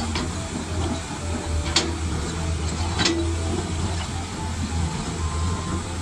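Large MAXPOWER ME500-8 crawler excavator's diesel engine running steadily with a hiss, and two sharp clanks, about two and three seconds in, as the bucket works the broken rock.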